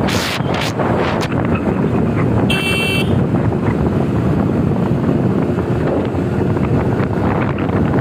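Wind rushing over the microphone of a moving two-wheeler, with a steady road and engine rumble underneath. A short, high-pitched beep sounds about two and a half seconds in.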